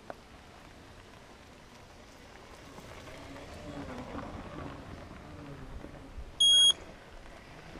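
A short, loud, high electronic beep about six and a half seconds in. Before it, a faint whirring hum swells and fades around the middle as a Segway rides past.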